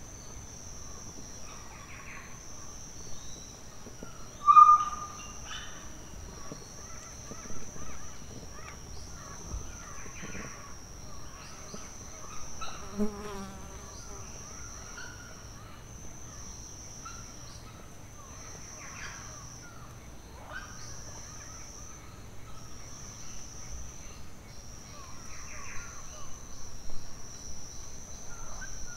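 Forest sound recording of grey tinamou: a steady high insect drone that breaks off briefly every couple of seconds, with scattered short bird calls over it. The loudest is a short clear note about four and a half seconds in.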